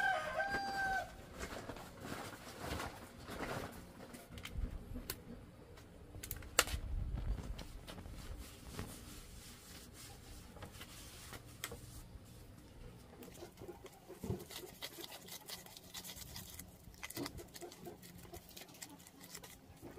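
A rooster crows, the call ending about a second in, followed by faint chicken clucking with scattered knocks and a brief low rumble midway.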